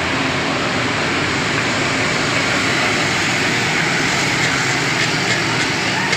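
Steady, loud mechanical drone of a running machine, even and unbroken throughout.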